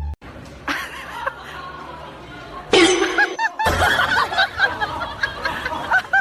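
People laughing, with a short loud burst of noise about three seconds in.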